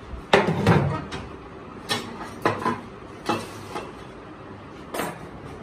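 A string of irregular metallic clanks and knocks, the first two the loudest, from handling a stopped metal lathe: its levers and the cast workpiece in the three-jaw chuck.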